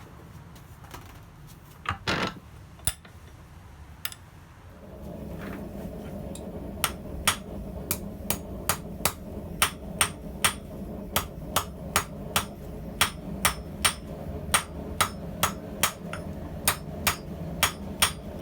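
Blacksmith's hammer striking hot steel on an anvil in a steady rhythm, about two to three blows a second, starting about seven seconds in. A steady low hum comes in a couple of seconds before the blows and runs under them.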